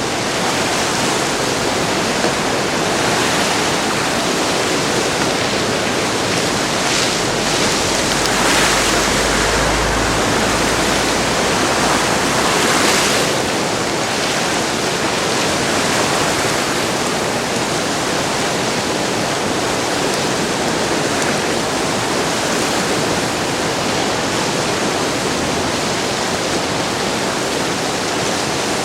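The flooding Driva river, in a 50-year flood, rushing past in a steady, loud roar of fast-moving water. A brief deeper rumble joins it about nine seconds in.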